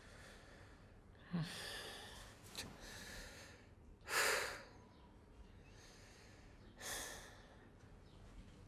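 A man sighing and breathing deeply, four breaths in all. The loudest is a sharp exhale about four seconds in.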